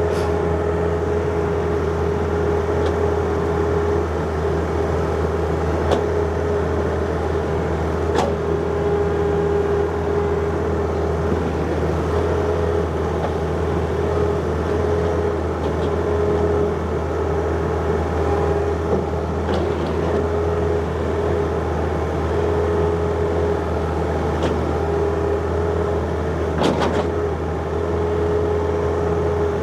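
John Deere 50ZTS mini excavator's diesel engine running steadily while it digs, with a steady whine over it and a few short knocks, the loudest near the end.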